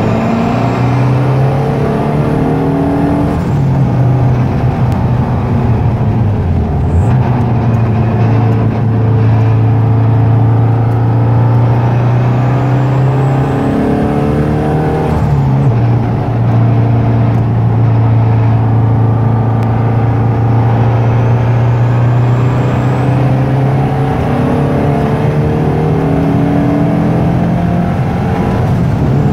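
Air-cooled 2.2-litre turbocharged VW Type 4 flat-four in a Beetle 1303, heard from inside the cabin running hard at track speed. Its note holds steady for long stretches and drops sharply a few times as the revs fall and pick up again.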